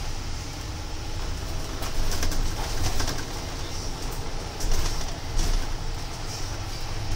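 Bus running along a city street, heard from its upper deck: a steady low engine and road rumble, with louder hissing surges about two seconds in and again about five seconds in.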